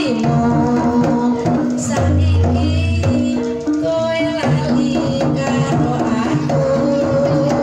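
Javanese kuda kepang (jaranan) accompaniment music playing continuously: drums under a melody of held, stepping notes.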